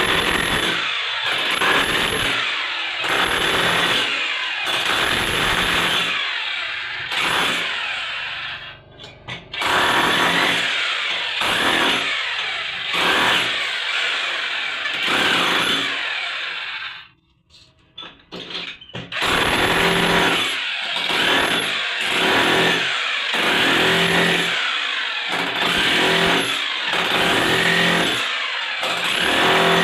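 Electric chipping hammer breaking up the tiled floor to expose a leaking water pipe beneath. It stops briefly twice, about a third and about two thirds of the way in.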